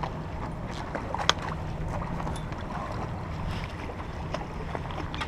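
Steady wind buffeting the microphone, a low rumble with a faint hum under it, and a few small clicks, the sharpest about a second in.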